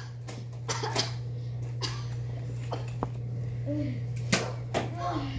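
Scattered sharp clicks and knocks over a steady low hum, with brief faint voice sounds in the second half.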